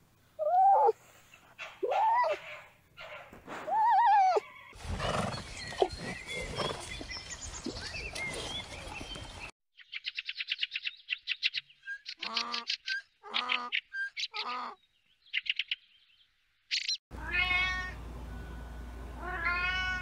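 A run of different animal calls: three short yelping calls that rise and fall in pitch, a few seconds of noisy rustle, fast chirping trills and several harsh calls. A domestic cat meows twice near the end.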